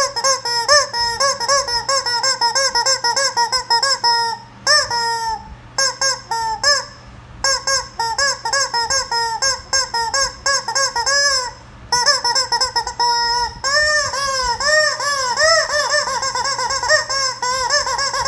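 Rubber chicken squeaker toy squeezed over and over, giving rapid runs of short, high-pitched squawks with brief pauses between runs, and some longer drawn-out squawks in the second half.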